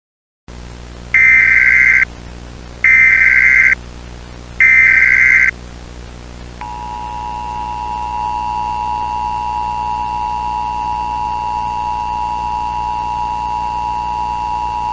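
Emergency Alert System tones: three short, loud data bursts of the SAME header, about a second apart, then the steady two-tone EAS attention signal held for about eight seconds over a low hum. This announces that an emergency alert message is about to be read.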